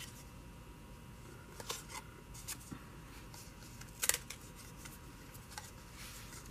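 Faint rustling and light taps of a cardstock circle being handled and positioned on a card, with a short louder rustle about four seconds in.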